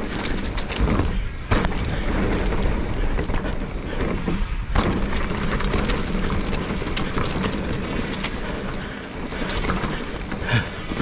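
Mountain bike rolling downhill on a dirt trail: tyres rumbling over the ground and the bike rattling over bumps, with wind buffeting the camera microphone and several sharp knocks from hard hits.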